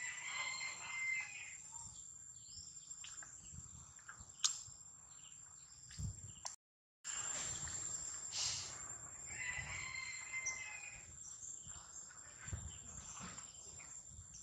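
Outdoor forest ambience: a steady high-pitched whine with short chirping calls near the start and again about ten seconds in, a sharp click a few seconds in, and a brief complete dropout near the middle.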